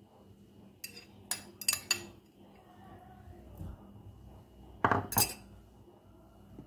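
A utensil clinking and knocking against a ceramic bowl and saucepan as grated ginger is scraped into the pot: a few sharp clinks about a second in, then a louder pair about five seconds in.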